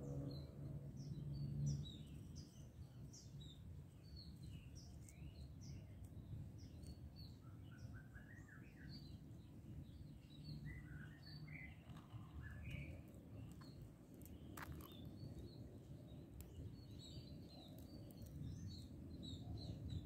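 Small birds chirping and calling in short scattered notes over a low, steady outdoor rumble, with a brief low hum in the first two seconds.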